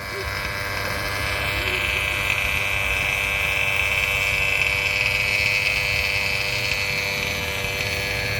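RC car motor running with a steady high whine, its pitch hardly changing.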